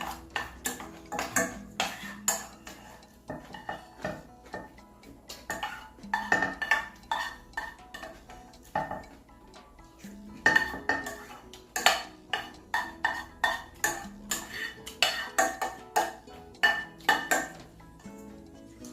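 Ramen being eaten: an irregular run of short clinks and slurps from a spoon and chopsticks working in the bowl, a few a second, with brief pauses.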